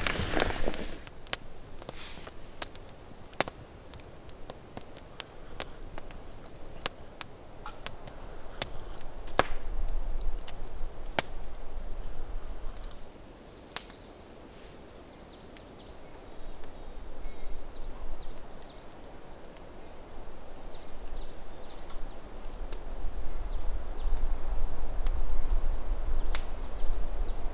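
Campfire crackling with scattered sharp snaps, thickest in the first half. Small birds chirp repeatedly in the second half, over a low wind rumble on the microphone.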